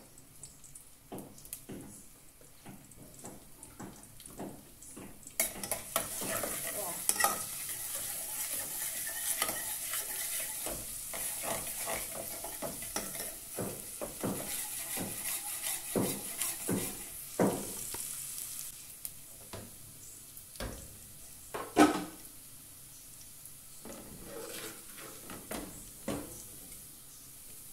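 Grated seasoning frying in hot oil in a metal saucepan: a sizzle starts suddenly about five seconds in and fades after a while, with a metal spoon clinking and scraping against the pan as it is stirred. One louder knock of metal on the pan comes near the end.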